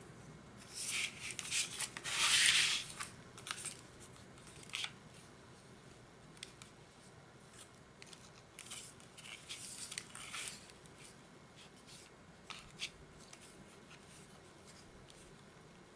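Cardstock rustling and rubbing as twine is wound around a button closure and drawn across the paper, in short scraping bursts. The loudest burst comes about two seconds in, with another around nine to ten seconds and a few small ticks between.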